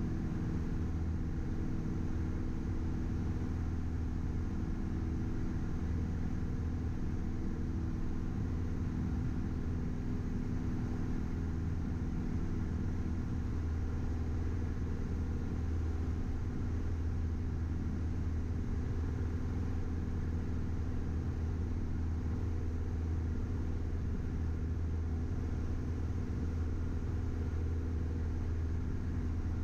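Piper PA-28-161's four-cylinder Lycoming engine and propeller droning steadily at constant power, heard from inside the cabin.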